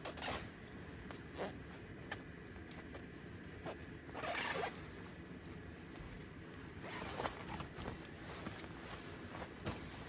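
A zipper being pulled in several short strokes, the longest about four seconds in.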